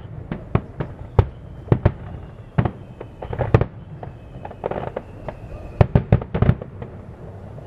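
Aerial firework shells bursting in quick, irregular succession: a string of sharp bangs, with stretches of crackling about three and a half and five seconds in and a quick cluster of bangs about six seconds in.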